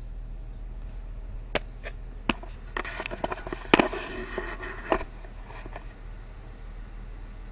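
A run of sharp clicks and knocks with short rattles over a steady low hum, the loudest knock about halfway through, then only the hum.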